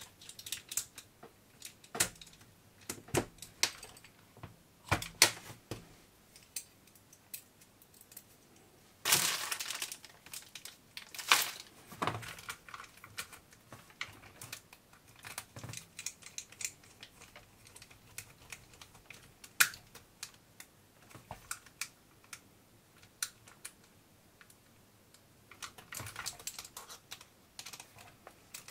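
Irregular small clicks, taps and scrapes of hands and a small screwdriver working on a 1:18 RC car's plastic chassis and aluminium hub parts while screws are tightened. A few louder handling noises come about nine and twelve seconds in and again near the end.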